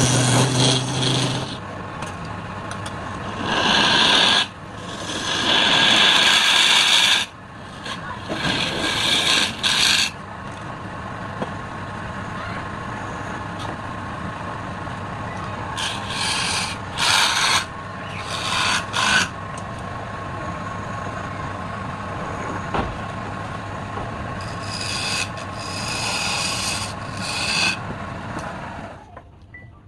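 Wood lathe running with a steady hum while a tool is held against the spinning wood in repeated passes, each a loud scraping rasp. The sound drops away near the end as the lathe stops.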